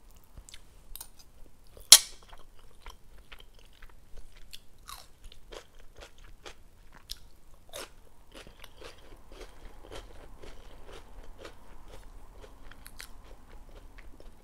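Close-miked chewing and crunching of crackers and raw bell pepper slices, a quick series of crisp crunches, with one loud sharp crack about two seconds in.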